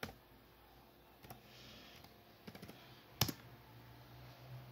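A handful of separate clicks of computer keys, the loudest just after three seconds in, against a quiet room.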